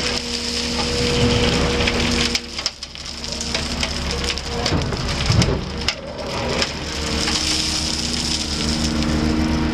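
Gravel sliding and grinding down a tipped steel dump-truck bed as an excavator bucket scrapes it out, with a steady engine drone underneath that fades for a few seconds in the middle.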